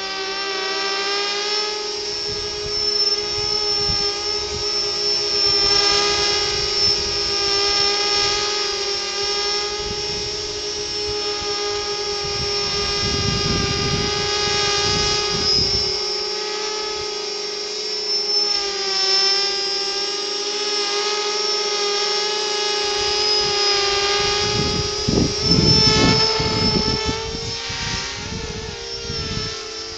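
Mini 250 quadcopter with Sunnysky 2212 1400kv brushless motors and 5x4.5 propellers flying: a steady high-pitched whine made of several tones that waver up and down with the throttle. Low rumbling buffets of wind on the microphone come twice, about halfway through and, loudest, near the end.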